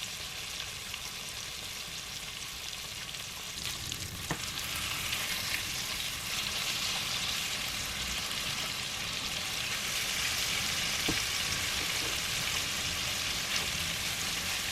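Lamb chops sizzling as they fry in a pan: a steady hiss that grows a little louder about four seconds in, with a few faint clicks.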